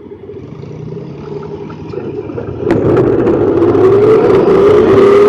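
Honda Pioneer 1000-5 side-by-side's parallel-twin engine, running quietly at first, then speeding up about two and a half seconds in and staying loud, its pitch slowly rising. A few sharp knocks and rattles come from the cab on the rough trail.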